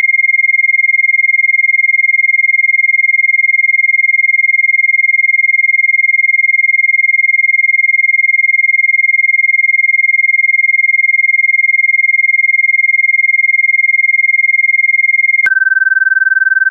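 Electronically generated Rife frequency: a single steady, high pure tone. About fifteen seconds in it switches abruptly to a lower steady tone, as the sequence steps to the next frequency.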